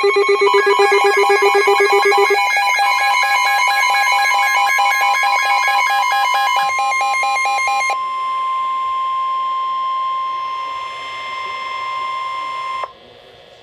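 Emergency Alert System alert tone for a tornado warning. A fast-pulsing electronic alarm runs for about the first eight seconds, then a single steady tone carries on alone and cuts off abruptly about a second before the end.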